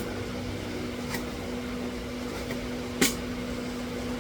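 Steady machine hum with a few light clicks and one sharper knock about three seconds in.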